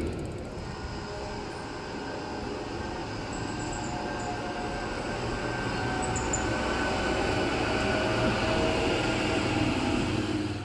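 Tatra KT4D tram passing along street track, a steady rumble of wheels on rails and traction motors that grows gradually louder, with a motorcycle passing close by near the end.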